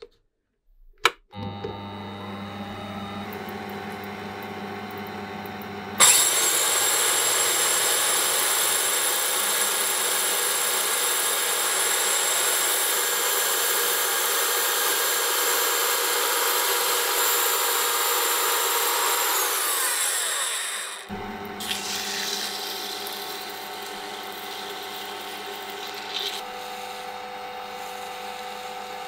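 A lathe starts about a second in and runs steadily, spinning a steel bolt. From about 6 s to about 21 s an electric belt file grinds the bolt's head, louder with a high whine, shaping the hex head round. After that the lathe runs on more quietly while sandpaper rubs the spinning head smooth.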